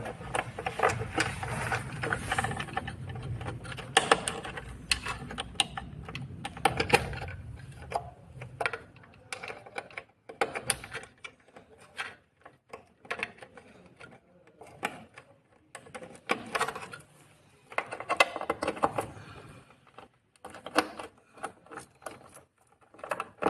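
Wire-harness plug connectors being handled and pushed into the sockets of a new motherboard: an irregular run of small plastic clicks and taps with cable rustling, busier in the first several seconds and again about two-thirds of the way through.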